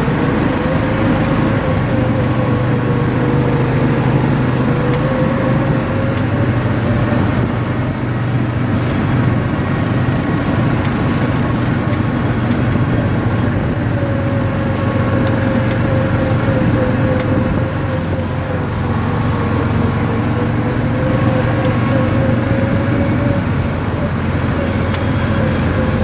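ATV engine running steadily while being ridden, with a droning whine that drifts slowly up and down in pitch as the throttle changes.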